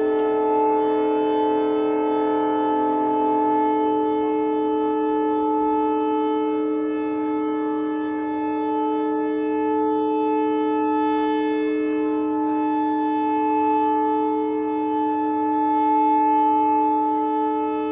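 Several ships' whistles sounding together in long, steady blasts, their held tones overlapping into a loud chord; a few of them drop out a few seconds in while the rest hold on. The whistles are sounded in unison as a noon memorial salute.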